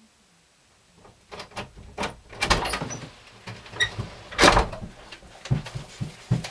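Irregular knocks and thuds at a wooden door, starting about a second in, with the heaviest blows about two and a half and four and a half seconds in and a short squeak near four seconds.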